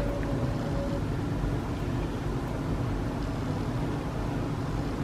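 A steady low hum with an even background rumble, like a small motor or fan running.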